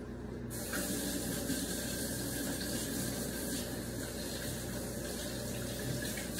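Kitchen tap running while hands are washed under it: a steady rush of water that starts about half a second in.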